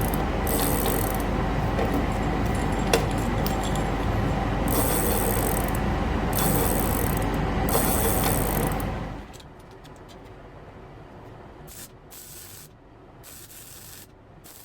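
Loud, steady noise of a power tool running in a workshop, with a low hum, cutting off about nine seconds in; quieter noise with short high bursts follows.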